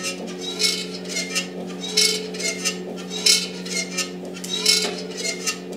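Hand pallet jack being worked under a heavy steel press base: a string of ringing metallic clinks and rattles, about one every half second or so, as the handle is worked and the steel load shifts on the forks.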